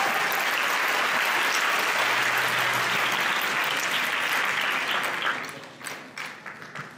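Audience applauding steadily, then dying away about five and a half seconds in.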